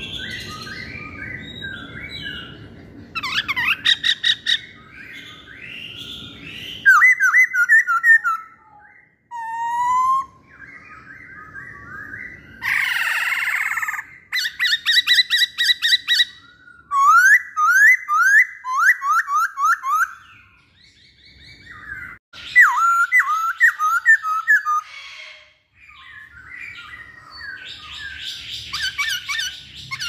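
Black-throated laughingthrush (poksay Hongkong) singing: a loud, varied whistled song in quick runs of repeated slurred notes, with one harsh rasping call about thirteen seconds in.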